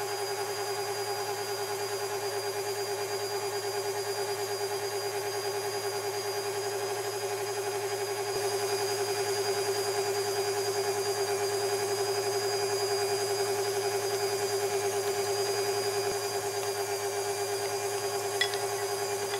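Electric mixer motor running steadily at one speed, a constant humming whine, with a brief click near the end.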